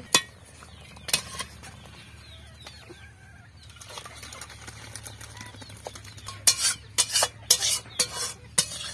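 Metal spatula scraping and clanking against a metal kadhai as cooked dalma is scraped out into a steel bowl: a couple of sharp clinks near the start, softer scraping, then a quick run of loud clanks in the last few seconds.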